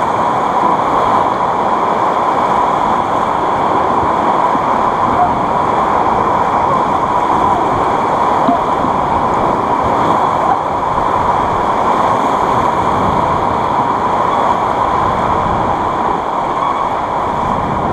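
Whitewater of a river rapid rushing, a loud, steady wash of water noise.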